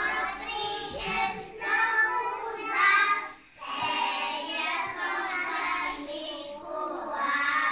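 A group of young children singing a song together in unison, in phrases, with a short break a little over three seconds in; the singing ends near the end.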